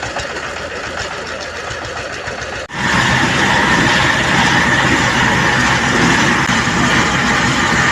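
Engine of road-repair machinery running steadily. About a third of the way in the sound cuts abruptly to a louder engine with a steady high whine.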